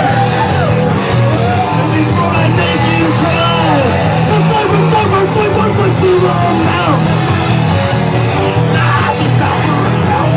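Punk rock band playing live, with electric guitar and vocals over a loud, steady backing.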